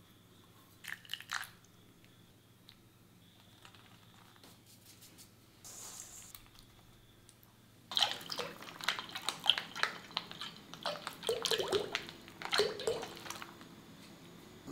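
Cooking oil poured in a stream into an empty wide metal kadai, splashing and glugging for about five seconds. About a second in there are a few soft squishes of marinated mutton pieces being mixed by hand.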